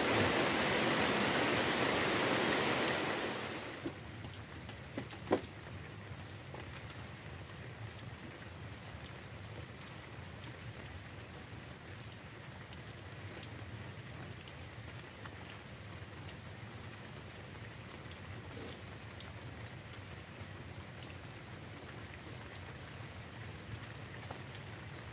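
Heavy rain falling on the water and the raft: a steady hiss that drops sharply in level about three and a half seconds in and carries on softer, with a couple of light ticks soon after.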